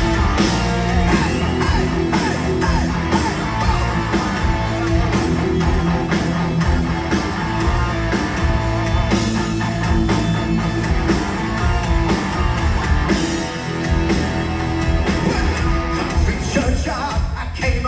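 Live heavy metal band playing loudly, with electric guitars, bass and drums.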